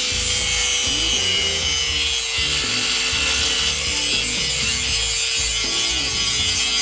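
Handheld angle grinder grinding a bevel onto the cut steel edge of an air-tank drum: a steady motor whine under the hiss of the abrasive disc on steel.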